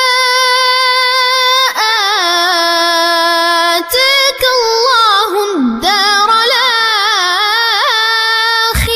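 A young boy's voice chanting the Quran in melodic tajwid, Warsh reading, drawing out long notes that waver and ornament in pitch, with echo on the voice. He breaks off briefly about two and four seconds in, and stops just before the end.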